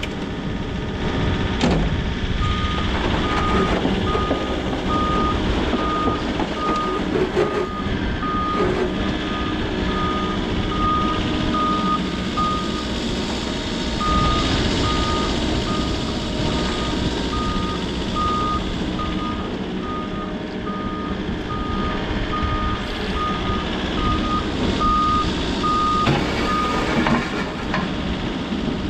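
Volvo EC60E excavator's travel alarm beeping at about one and a third beeps a second while the machine tracks onto the truck bed, with its diesel engine running underneath. The beeping stops for about a second near the middle, then resumes.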